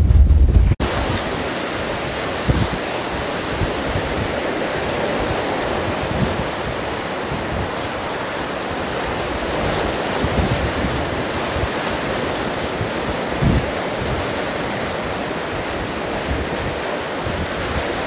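Storm surf breaking against a rock jetty, a steady churning wash of waves with strong wind and a few low thumps. At the very start there is a brief heavy low wind buffeting on the microphone, which stops abruptly less than a second in.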